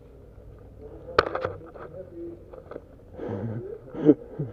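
Indistinct voices, with a single sharp click about a second in.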